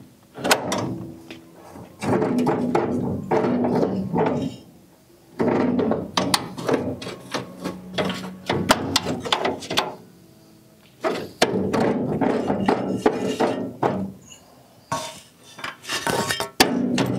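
Background music with a percussive beat, over metal knocks and clanks from a pry bar being worked against the front coil spring and suspension of a 1964 Chevy Nova. The sound dips briefly twice.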